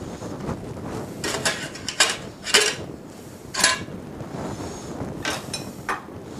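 Stainless steel pot and its lid clanking as the lid is lifted off and handled, with a spoon clinking against the metal: about six sharp metallic clinks, spaced unevenly.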